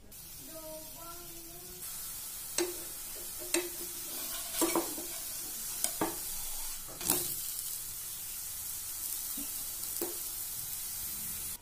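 Besan chilla batter sizzling in oil on a nonstick tawa, a steady hiss of frying. A metal spatula scrapes and taps against the pan several times as it is worked under the pancake.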